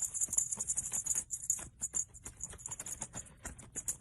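A rapid, continuous rattling shake with a crisp, high jingle, in quick irregular strokes like a maraca or shaker.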